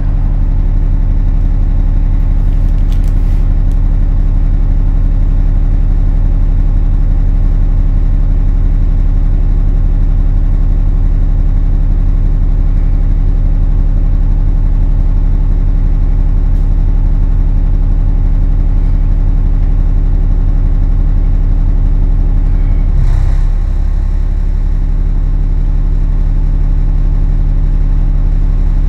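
Diesel engine of an ADL Enviro400 double-decker bus idling, heard from inside the bus as a steady, loud drone. About 23 seconds in, the drone changes pitch and drops slightly in level.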